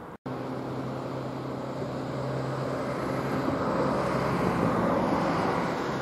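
A motor vehicle passing, its noise swelling to a peak about four to five seconds in and then easing off, over a steady low hum.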